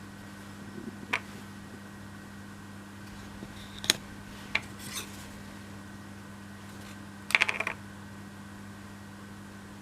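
Thin laser-cut MDF pieces clicking and tapping as they are picked up and set down on a tabletop: a few single clicks, then a quick rattle of several about halfway through. A steady low hum underlies them.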